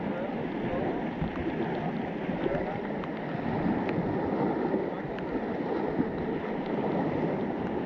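Whitewater rapid of a class II–III river rushing steadily, water churning over rocks, with a few faint ticks.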